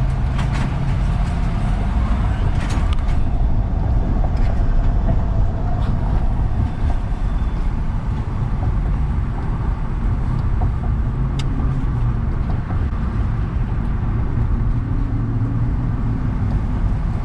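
Car being driven, its steady engine and road rumble heard from inside the cabin.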